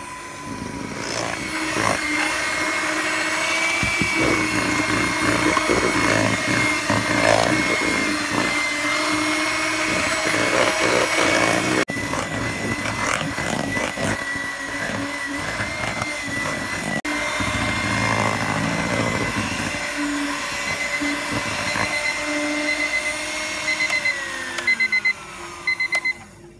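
Handheld electric mixer beating eggs and sponge-cake mix into a thick batter, its motor running steadily. Near the end the motor winds down and stops while a digital kitchen timer beeps in short bursts, marking the end of seven minutes of mixing.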